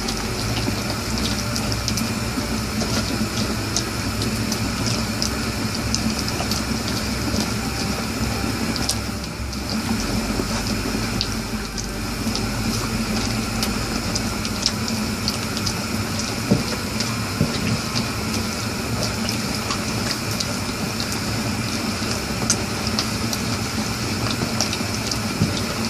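Hot chicken-stock sauce steadily hissing and bubbling in a pan, with light ticks here and there.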